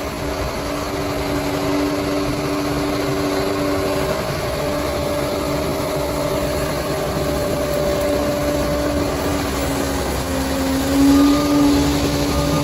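Bulldozer's diesel engine running steadily under working load, with a whining tone over the low rumble. The whine shifts pitch and swells briefly near the end.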